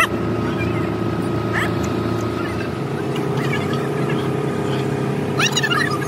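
An engine running steadily at an even speed, with a sharp click at the very start and short high chirps over it twice.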